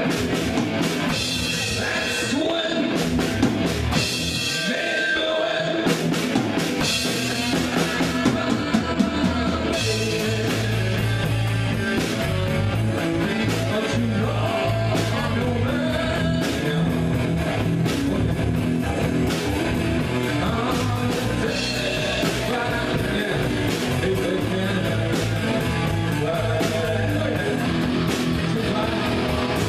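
Live rock band playing: electric guitars and drum kit, with the low end filling out strongly about ten seconds in.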